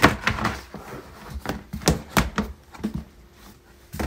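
Plastic storage bin and its cover being handled and fitted over the top: a dozen or so irregular hollow knocks and clacks, the first the loudest.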